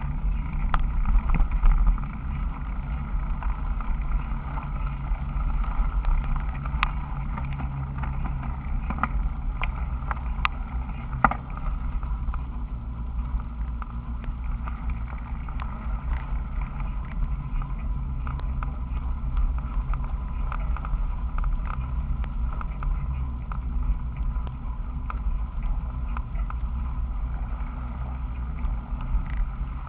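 Bicycle handlebar-mounted camera picking up the bike's vibration on a rough, sand- and mud-covered road: a steady low rumble with frequent scattered clicks and rattles.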